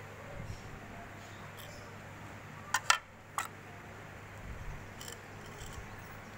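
Low steady hiss of a gas stove burning under a covered aluminium pot, with three sharp clicks close together about three seconds in.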